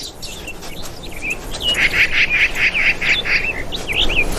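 High-pitched animal chirping: a rapid run of short chirps, about five or six a second, starting about a second and a half in. It is followed by a few quick rising-and-falling chirps near the end.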